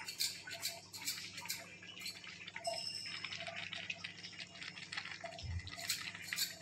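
Marinated chicken and masala frying in oil in a kadai on a low flame: faint, irregular sizzling crackles and pops over a steady low hum.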